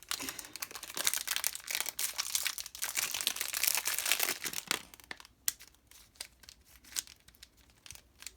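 Packaging crinkling and rustling as a cube's box is unwrapped. It is dense for about five seconds, then thins to a few scattered clicks and rustles.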